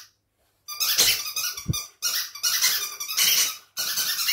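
Squirrel-like squeaking and chattering made for a squirrel hand puppet, in three rapid bursts of a second or more each.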